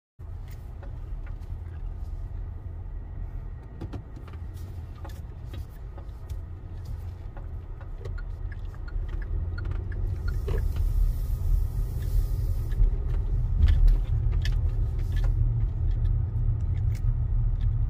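Car engine and road rumble heard from inside the cabin as the car drives slowly, a low steady rumble that grows louder about halfway through. A few faint clicks, and a brief hiss near the middle.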